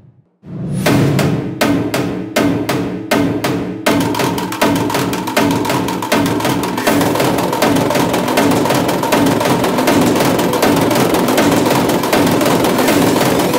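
Background music with percussion. After a brief break at the start, a steady run of sharp drum hits, about three a second, gives way about four seconds in to a fuller, busier beat.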